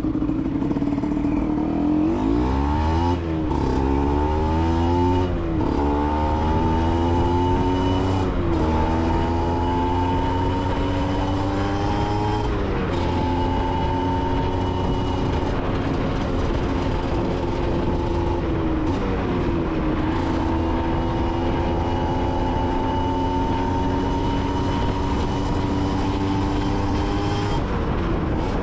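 Aprilia SX 125's single-cylinder two-stroke engine through an Arrow exhaust, riding and pulling through the gears. The pitch climbs, then drops sharply at each shift, about five times, with long slow climbs in the second half.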